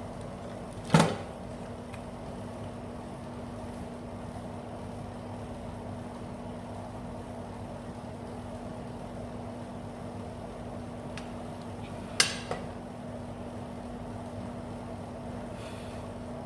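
Steady low electrical hum with one even tone, broken by two sharp taps of a small hard object on the workbench, one about a second in and another about twelve seconds in.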